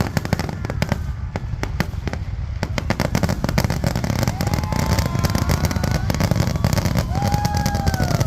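Fireworks display: a dense, rapid run of crackling pops over a continuous low rumble. From about halfway in, a few long held tones sound over the crackle.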